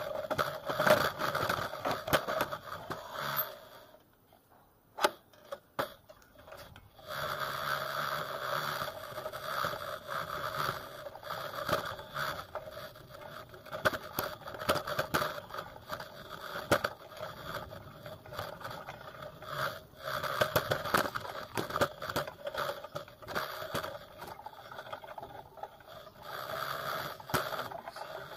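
Bicycle ridden over a rough dirt lane: a continuous rolling whirr with rattling and clicking from the bike. About four seconds in, it drops nearly silent for a few seconds, broken by a couple of clicks, then resumes.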